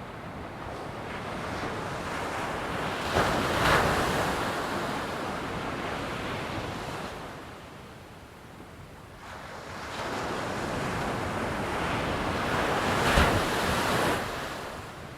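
Ocean surf: a steady rush of waves, with two breaking swells about ten seconds apart, the first about three seconds in and the second, slightly louder, near the end.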